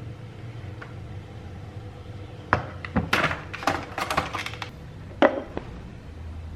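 Kitchenware clinking and knocking: a quick run of sharp clinks and knocks starting about two and a half seconds in, with a last knock about five seconds in.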